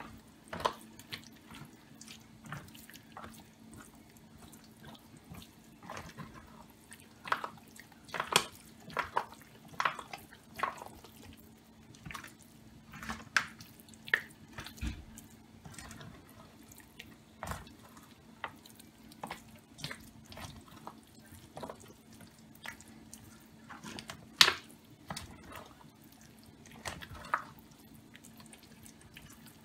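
Spatula stirring a thick, wet chicken dressing mixture with raw egg in a disposable aluminium foil pan: irregular wet smacks and stirring sounds. A faint steady low hum runs underneath.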